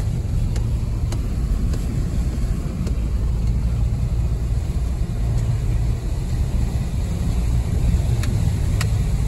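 Steady low rumble of a car driving, heard from inside the cabin: engine and road noise, with a few faint knocks.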